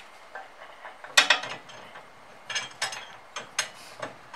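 Ratchet wrench clicking in short, irregular runs as a bolt is tightened to fix a steel bar to a wall-mounted tire rack's bracket. The loudest run comes about a second in.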